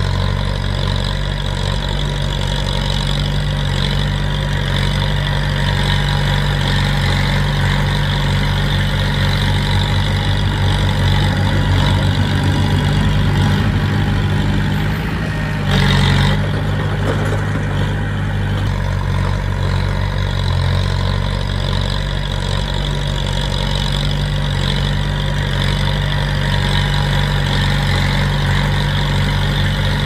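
Diesel engine of heavy earthmoving machinery running steadily, with a short burst of noise about halfway through.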